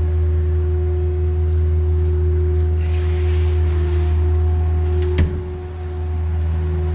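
Steady low hum made of several held tones, with one sharp click a little over five seconds in.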